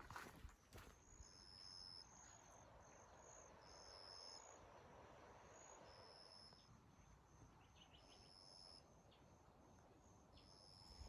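Faint forest insects calling, crickets or similar: a high drawn-out note repeating about every two and a half seconds over a run of short, quicker chirps. A couple of footsteps in the first second.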